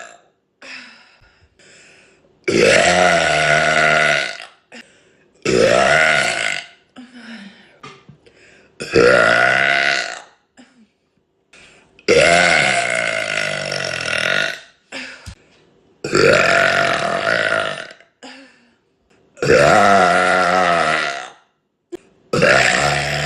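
A woman burping loudly: a run of about seven long, drawn-out belches, each lasting one to three seconds, with short gaps between. The last one is still going at the end.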